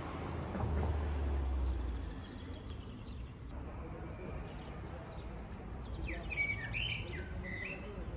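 Small birds chirping in street trees over steady outdoor street noise, the chirps thickest near the end. A low rumble sounds during the first two seconds.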